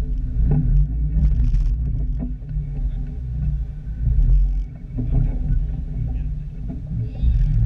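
Jeep engine running at low revs, a steady low rumble with a few knocks, getting louder near the end.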